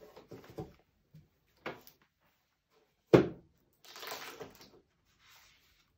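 Hardback books being handled on a wooden table. There is a light knock about a second and a half in and a sharper, louder knock about three seconds in as a book is set down. Paper rustles as pages are turned near the end.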